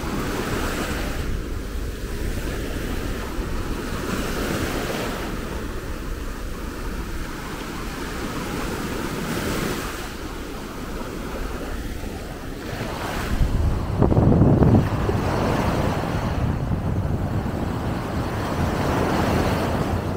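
Sea surf washing up a sandy beach: waves breaking and foaming in the shallows, swelling and falling every few seconds. Wind buffets the microphone throughout, loudest about two-thirds of the way through.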